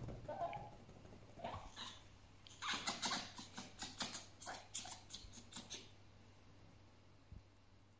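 Fennec fox making angry, defensive calls. A few short squeaky calls come in the first two seconds, then a rapid run of sharp chattering for about three seconds.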